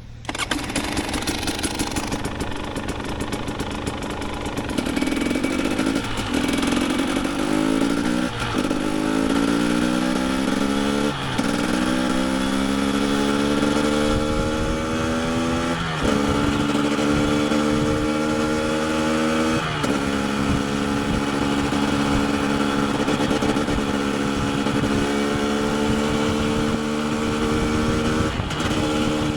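KTM 250 EXC TPI single-cylinder two-stroke engine pulling a motorcycle through the gears: its pitch climbs, drops back sharply at each shift and climbs again, several times over.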